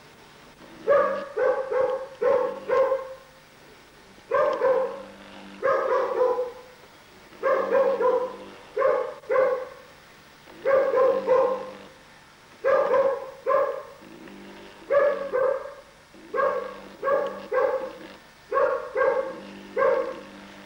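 A dog barking over and over in short runs of two to four barks, each run about a second and a half to two seconds apart.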